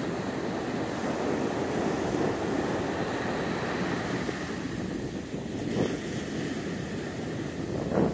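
Ocean surf breaking and washing up a sandy beach as a steady rush, with wind on the microphone. Two brief low thumps near the end, the second the loudest moment.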